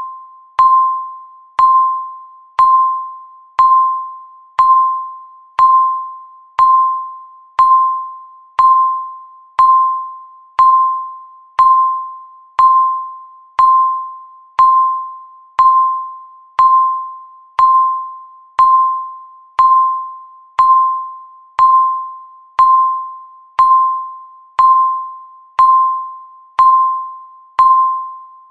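Countdown timer beeping once a second: a single mid-pitched electronic chime, each beep starting sharply and fading away before the next one.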